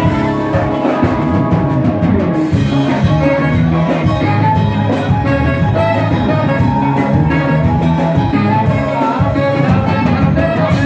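Live Ethiopian band music played loud and steady, with drum kit, saxophone and a male singer.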